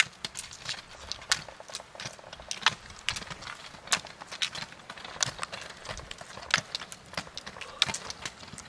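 Ski pole tips striking asphalt as roller skiers skate past, a series of sharp, irregular clicks a few times a second.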